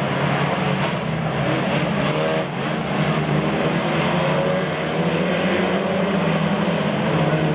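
Saloon stock car engines running at racing speed, the revs rising and falling with a brief dip about two and a half seconds in.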